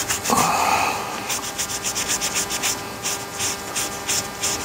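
Quick back-and-forth rubbing, several strokes a second, as sealant smeared on a shirt is wiped and scrubbed off. A short squeak-like tone sounds about a third of a second in.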